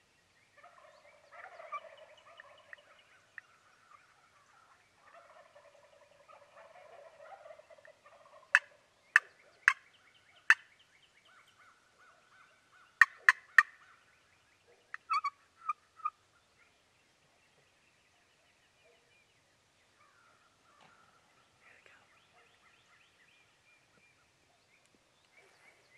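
Wild turkey gobbling, several rattling gobbles in turn, mostly faint. In the middle come two runs of sharp, loud clicks, four and then three.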